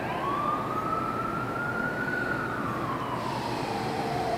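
A distant siren's slow wail, rising for about two seconds and then falling away, over steady background noise.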